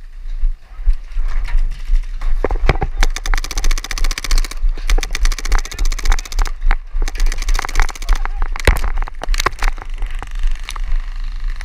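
Electronic paintball markers firing: two long rapid strings of shots in the middle, each about a second and a half, with scattered single shots around them. Wind rumbles on the microphone underneath.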